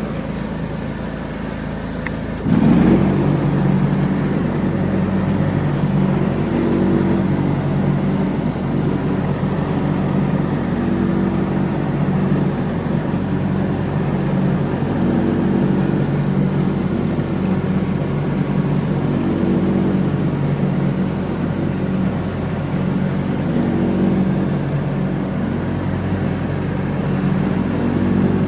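John Deere X304 lawn tractor engine running. About two and a half seconds in it suddenly gets louder, then runs steadily.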